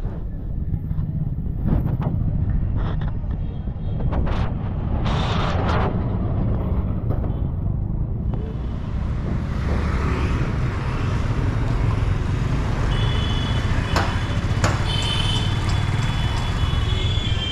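Busy street traffic heard from a moving motorbike: a steady low rumble of wind and engine, with several short vehicle horn toots in the last few seconds.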